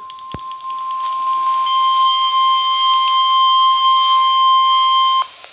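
NOAA Weather Radio warning alarm tone: one steady, single-pitch electronic tone broadcast ahead of a severe thunderstorm warning. It grows louder about a second in and cuts off sharply near the end. Crackling clicks run through the first few seconds.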